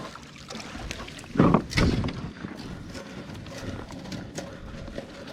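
Irregular knocks and clatter from handling a freshly caught trout and gear in a kayak, with one louder thump-and-rustle about a second and a half in.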